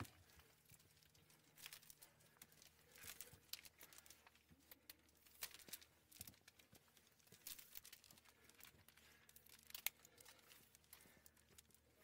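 Near silence, with faint scattered clicks and scuffs.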